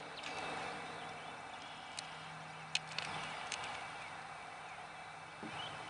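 A few light, sharp clicks and taps as a caught crappie is handled and a small jig hook is worked out of its mouth, over quiet open-air background.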